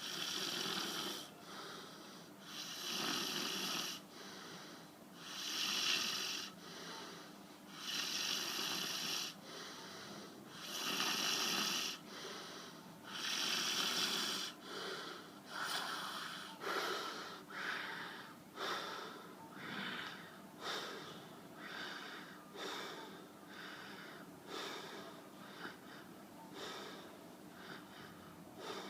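A person snoring with wheezy, rasping breaths, one about every three seconds at first. About halfway through, the breaths become shorter and quicker, about one a second.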